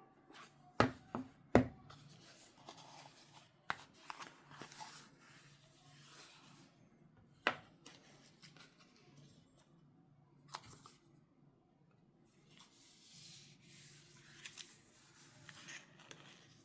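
Hands handling an iPhone 16e box and its packaging: a few sharp taps and clicks, the loudest three close together in the first two seconds and single ones later, between stretches of rubbing and rustling of paper or card.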